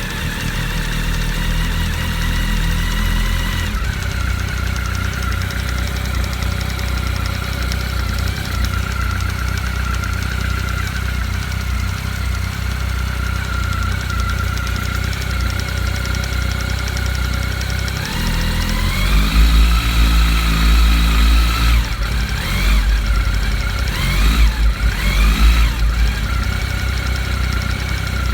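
Honda CB1300 inline-four engine idling with a knock from low in the engine by the water pump; it is revved up a little over halfway through, then blipped about three times before dropping back to idle. The owner traced the knock to an air lock in the cooling system letting the water pump shaft rattle in its play against the oil pump shaft.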